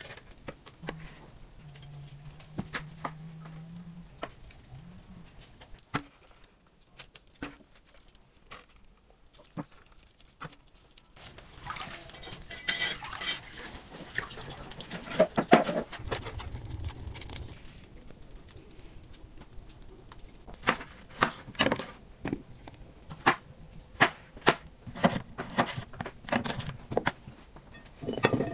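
Food-preparation handling sounds: sharp clinks and knocks of dishes and utensils, with rustling in the middle and a low hum in the first few seconds. Near the end, potato wedges are tipped from a wooden bowl into a glass bowl.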